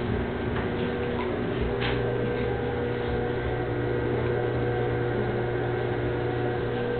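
Electric potter's wheel running, with a steady hum as the wheel head spins, while hands press and center wet clay on it; a few faint clicks.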